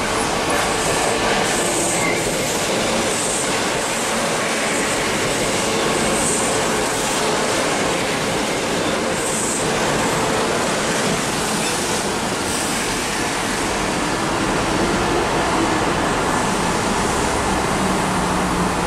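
Kintetsu Urban Liner electric limited express trains running past: a steady loud rumble of steel wheels on rail, with a regular clatter of wheels over rail joints for the first half or so.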